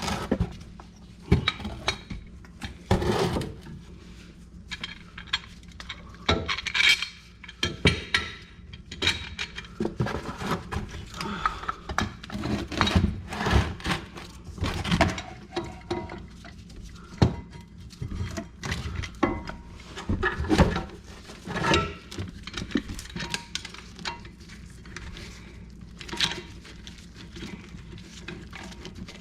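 Irregular metal clinks and knocks of a C-clamp being set against a brake caliper and worked to push the caliper piston back in.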